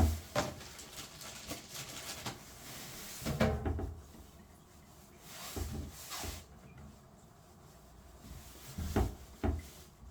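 Hands working on an open boiler, handling parts and tools: a series of short knocks and clunks, several in pairs, with rubbing and scraping between them.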